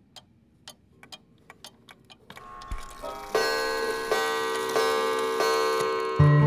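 A clock ticking, a few ticks a second. About two and a half seconds in, acoustic guitar music fades in and soon drowns it out.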